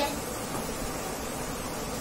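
Steady background hiss of room noise, with a short click right at the start.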